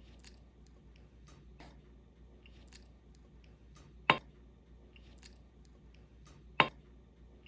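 Faint taps and ticks of a metal spoon and spice jars against a glass mixing bowl as a marinade is stirred and seasoned, with two sharp clinks, one about four seconds in and one about six and a half seconds in.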